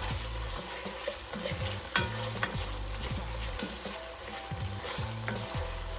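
Sautéed onions, celery, peppers and garlic with tomato paste sizzling in a hot pan while being stirred, with a few sharp clicks of the utensil against the pan.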